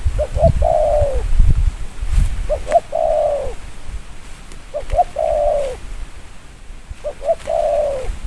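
Spotted dove (cu gáy) singing: four cooing phrases about two seconds apart, each two short notes and then a long note that falls at its end. A low rumbling noise runs under the first two calls.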